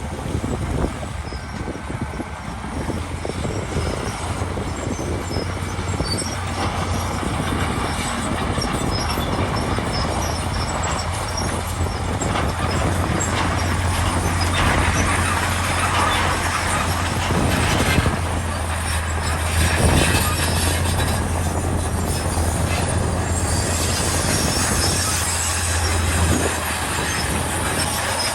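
Heavy diesel construction machinery running steadily with a low engine hum, overlaid by continuous grinding and scraping noise that swells in louder bursts around the middle and again near the end.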